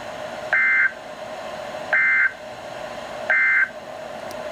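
Emergency Alert System end-of-message code sent over NOAA Weather Radio: three short, identical warbling data bursts about a second and a half apart, signalling that the flash flood warning broadcast is over. A faint steady hum runs underneath.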